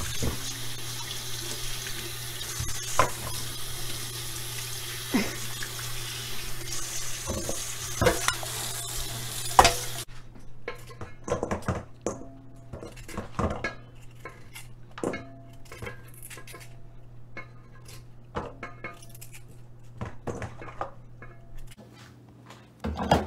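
Tap water running over chunks of fresh coconut in a metal colander, with the pieces knocking against the steel, until the tap shuts off suddenly about ten seconds in. After that, coconut pieces clatter and knock in a stainless steel bowl, with a louder knock near the end as the blender jar goes onto its base.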